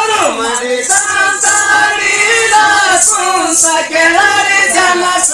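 Men's voices singing a Moharam folk song (padagalu) together, a held, wavering melody, with a high jingling rattle accenting the beat every second or so.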